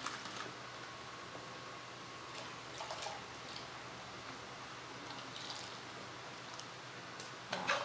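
A spoon stirring baking soda in a plastic cup of liquid soap mixture, then the mixture poured from the cup into a large plastic basin of the same liquid, with soft splashes and drips. An electric fan makes a steady hiss throughout.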